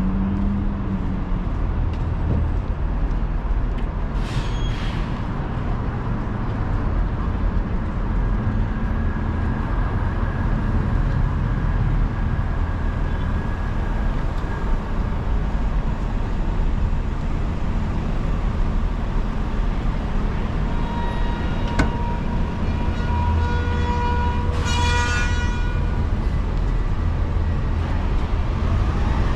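Downtown city street traffic: a steady low rumble of passing vehicles. A short hiss comes about four seconds in, and a longer hiss with a squeal about twenty-five seconds in, of the kind a bus or truck's brakes make.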